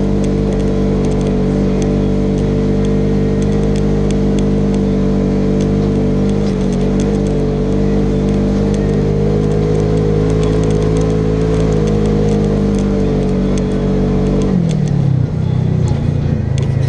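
Polaris RZR XP 1000 side-by-side's parallel-twin engine running under steady throttle on a dirt trail, its pitch dropping near the end as the driver eases off.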